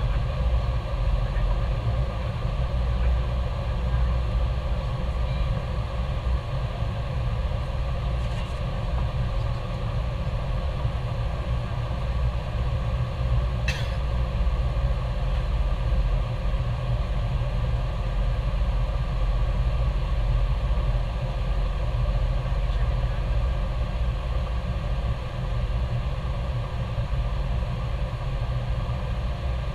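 Steady engine drone inside an aircraft cockpit: a deep, even rumble with a constant hum above it. One short click about 14 seconds in.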